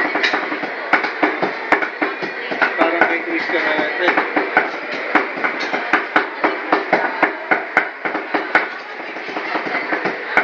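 Cleavers chopping sisig on a chopping board, sharp knocks in a running rhythm of about two to three strikes a second, over background voices.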